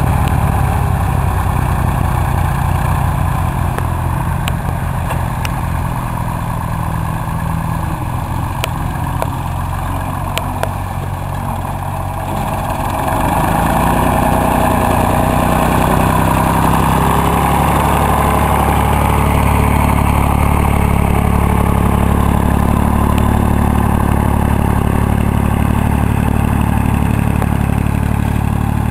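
Massey Ferguson tractor's diesel engine running steadily as it pulls a plough through the soil. It gets louder about halfway through as the tractor comes close.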